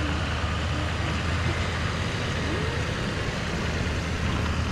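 Truck engine running steadily, a low drone under an even spread of road and engine noise.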